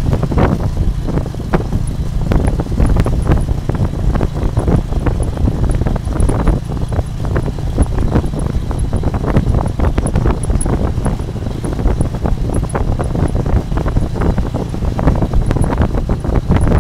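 A moving Cambodian tuk-tuk, a motorbike-drawn passenger carriage, heard from inside: wind buffeting the microphone over a steady low rumble, with frequent clatter and knocks from the carriage on the road.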